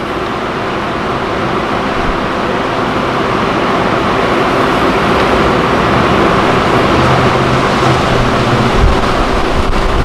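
Honey bee colony buzzing: a dense, steady hum from thousands of bees on the exposed comb, growing gradually louder.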